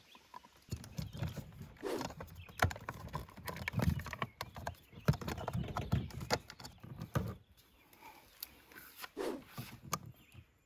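Hand work on a plastic RV power inlet: irregular clicks, taps and knocks of a screwdriver against the plastic inlet housing and cover, with low thumps and rustling. The handling is busiest in the first seven seconds or so and thins out near the end.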